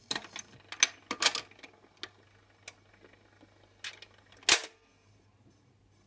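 Bush SRG 91 radiogram's record changer cycling at the end of a record: a series of sharp mechanical clicks and clunks as the tonearm lifts and swings back, the loudest clunk about four and a half seconds in. A faint steady low hum runs underneath.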